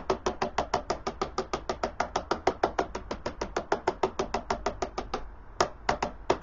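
Quick, even tapping of a paintbrush handle's end on loose model-railway ballast and track sleepers, about eight light knocks a second, tamping the ballast down between the sleepers. The tapping pauses about five seconds in, then a few more taps come near the end.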